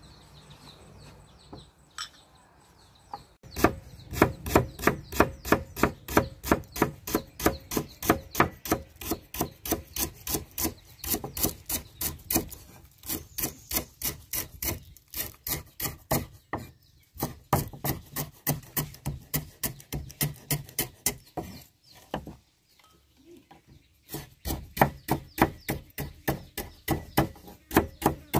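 Rapid, steady strikes on wood from food being prepared, about three to four a second, starting a few seconds in. They pause briefly now and then, with a longer break about three-quarters of the way through.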